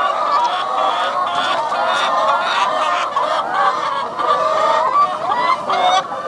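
A large flock of egg-laying hens clucking and calling all at once, a dense, continuous chorus of many overlapping voices.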